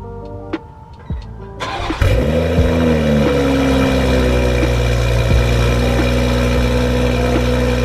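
BMW M340i's turbocharged 3.0-litre inline-six, breathing through a catless downpipe, starting up about two seconds in: a brief crank, a flare of revs that drops back over a second or so, then a steady idle.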